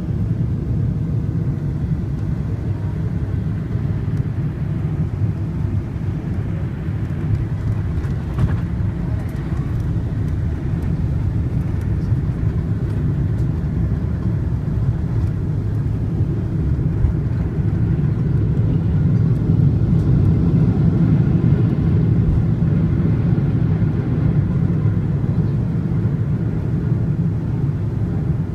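Cabin rumble inside a Boeing 777-300ER landing, with spoilers deployed: a steady low roar of GE90 engines, airflow and runway wheels. It grows louder for several seconds past the middle of the rollout.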